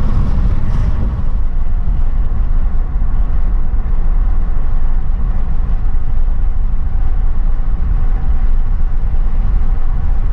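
Car driving along an unpaved road: a steady low rumble of tyres and engine, with no sudden events.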